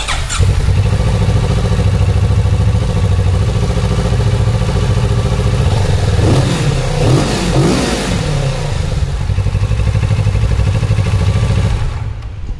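Kawasaki Z650RS's 649cc liquid-cooled parallel-twin idling through its stock exhaust, with a few quick throttle blips that rise and fall in pitch about six to eight seconds in, then settling back to idle.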